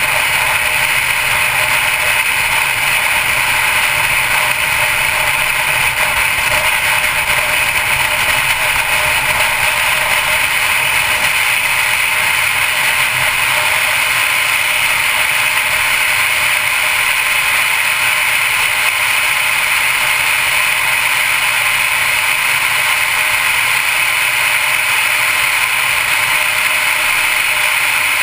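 2012 Mercedes-Benz C250 Coupe driving at steady speed: continuous, even tyre and wind noise with no change in pace.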